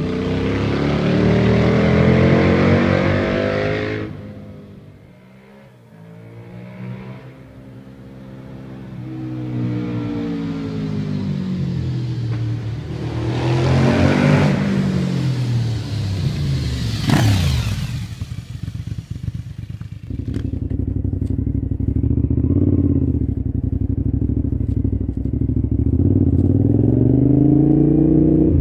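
Cagiva Raptor V-twin motorcycle accelerating through a road tunnel, climbing in pitch as it approaches and dropping sharply as it passes close, about 17 seconds in. From about 20 seconds the V-twin is heard from on board while riding, steady, with the revs rising near the end.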